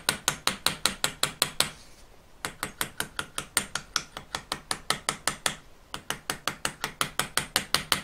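Rapid light hammer taps on the end of a hinge-pin rivet in a sterling silver lighter case, about six a second, in three runs with two short breaks. The many light taps slowly spread the pin end into a domed rivet head.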